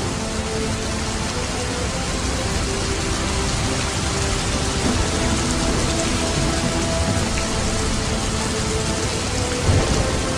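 A steady, even rushing hiss like rain, with faint music underneath.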